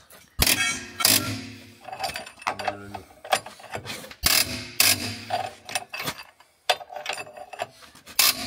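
Irregular metallic clanks and knocks of hand tools, wrenches and metal parts, working on a van's rear leaf-spring bolts.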